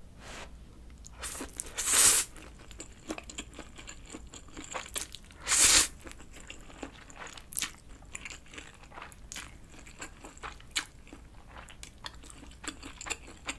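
A person eating instant stir-fried noodles: two louder slurps, about two seconds in and again near six seconds, with steady chewing and small wet mouth clicks between them.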